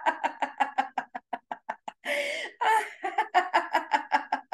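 A woman's deliberate laughter-yoga laughter: a rapid staccato "ha-ha-ha", about six pulses a second, broken about two seconds in by two breathy gasping bursts, then quick laughing again.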